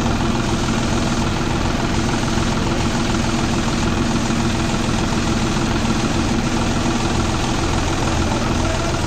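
Diesel engines running steadily: a Hyundai crawler excavator working as it digs and loads soil into a tractor trolley, together with a John Deere tractor idling close by. An even low drone with no breaks.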